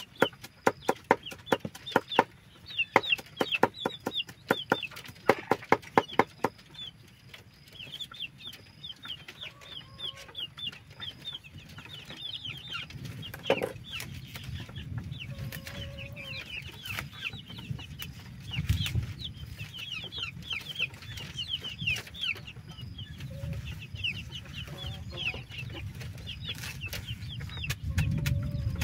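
A knife chopping cassava leaves on a wooden board: quick runs of sharp chops in the first six seconds or so, then fewer. Chickens cluck and give short, high, falling peeps throughout.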